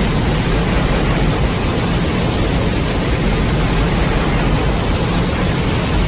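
A loud, steady rushing noise with a deep rumble underneath, from a monster-movie sound effect; it has no pitched roar in it.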